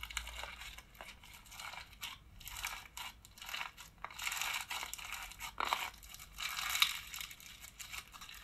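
Crunchy slime being squeezed and kneaded by hand, crackling in irregular bursts of fine crunches.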